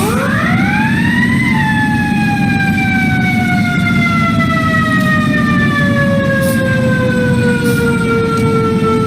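Fire truck siren winding up to a high wail in about a second and a half, then slowly winding down in pitch for the rest of the time, over a steady low engine rumble.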